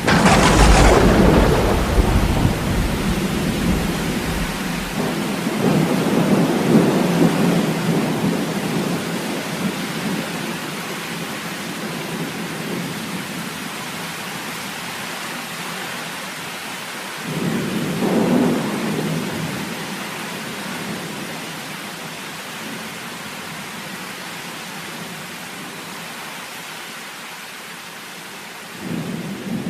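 Thunderstorm: steady heavy rain with rolling thunder. A loud thunderclap opens with a long deep rumble that dies away over several seconds, more thunder rolls in about 17 seconds later, and another starts near the end.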